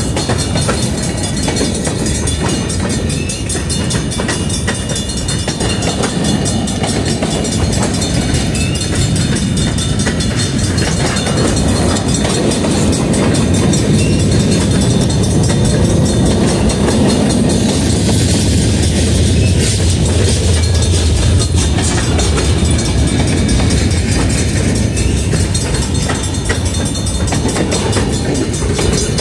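Union Pacific freight train running past, a steady, loud train noise, heaviest in the low end and swelling slightly in the middle.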